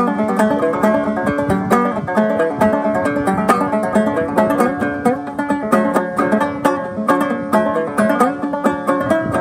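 Old Harmony banjo played clawhammer style in a relative gGGBD tuning: an old-time fiddle tune with a steady, driving rhythm of picked notes and brushed strums.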